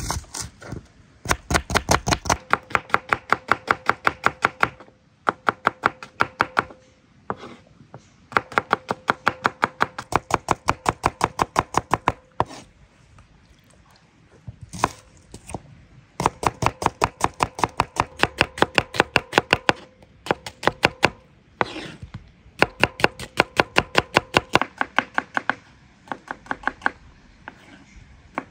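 Knife slicing onions on a wooden cutting board: rapid, even strokes through the onion onto the wood, in runs of a few seconds with brief pauses between them.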